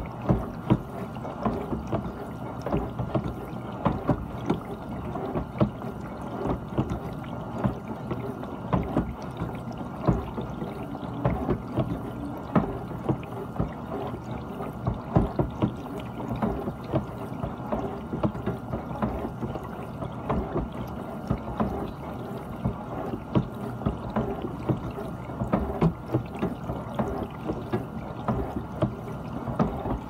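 GE dishwasher in its wash cycle: a steady rush of spraying water with frequent irregular splashes.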